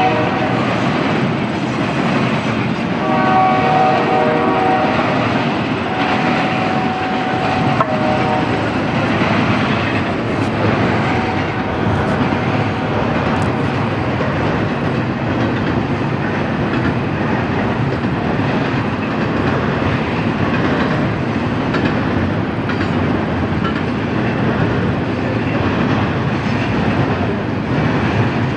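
Diesel freight locomotive horn sounding two more blasts in the first several seconds as the lead locomotives pass, over the steady rumble and wheel clatter of a freight train. The rest is double-stack intermodal container cars rolling past with steady clickety-clack on the rails.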